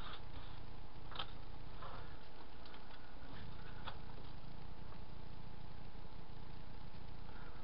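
A few faint light clicks and taps of thin styrene sheet pieces being handled and set down on a cutting mat, over a steady low hum.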